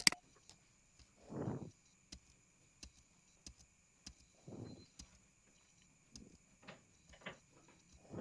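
Faint, scattered computer-mouse clicks as presentation slides are clicked back through. There are a few short, muffled low sounds about a second and a half and about four and a half seconds in.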